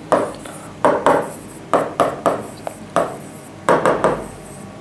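Marker writing on a whiteboard: about eight short scratching strokes and taps as an equation is written out.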